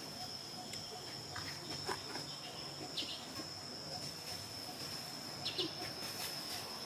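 Steady high insect drone, one unbroken thin tone, with short faint high squeaks about three seconds in and again near the end.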